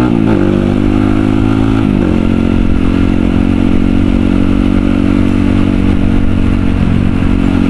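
Kawasaki KLX supermoto's single-cylinder four-stroke engine under way, pitch climbing, then dropping sharply as it shifts up just after the start and again about two seconds in. It then runs at a steady speed.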